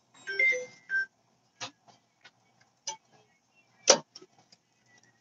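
Metal scrapes and clinks as a round radiant cooktop element with a metal rim is handled and set into the open top of an electric range: a short squeaky scrape in the first second, then a few separate knocks, the loudest about four seconds in.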